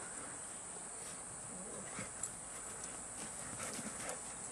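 Quiet outdoor background with a steady high hiss and a few faint taps and scuffs from a Belgian Shepherd and her puppies playing on the dirt.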